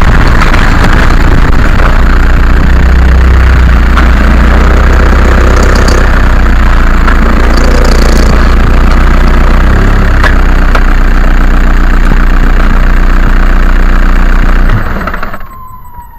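Loud, steady low rumble of a VW Golf Mk4 TDI on the move, picked up by a camera mounted among the suspension components, with a few faint knocks in it. The sound drops away sharply near the end.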